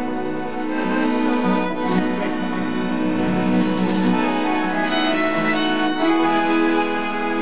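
Instrumental folk music from a small acoustic group: violin, piano accordion and acoustic guitar playing together. About six seconds in the tune settles onto a long held note.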